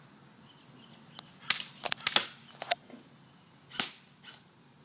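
Airsoft guns firing scattered single shots, about eight sharp cracks at irregular intervals, several close together around the middle.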